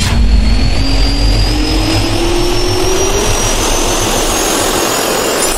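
Jet-turbine spool-up sound effect: a whine that rises slowly in pitch over a rushing, jet-like noise and a deep rumble, the rumble fading out in the second half.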